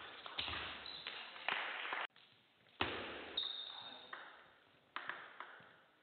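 Table tennis rally: the celluloid ball clicking sharply off paddles and table at irregular intervals, each hit echoing in a large hall. A brief high squeak comes about halfway through.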